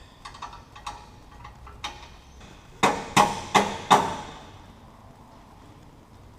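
Four quick hammer blows on a metal exhaust pipe, about three seconds in, each with a short metallic ring, after a few lighter clinks and taps.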